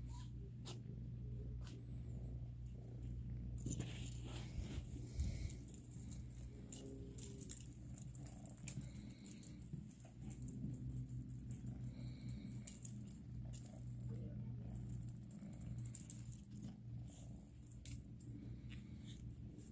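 A cat wand toy rattling and jingling in uneven bursts as kittens bat at it, with small clicks and a low steady hum underneath.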